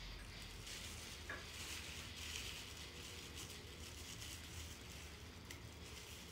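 Faint rustling and crinkling of a small clear plastic packet being handled, loudest about two seconds in, over a low steady room hum.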